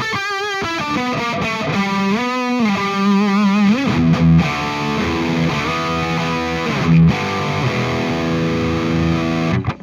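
Distorted electric guitar played through an Axe-FX II amp modeller: sustained single notes and chords with wide vibrato and bends, stopping just before the end. This is the player's own untreated tone being fed to the tone-matching feature as its local signal.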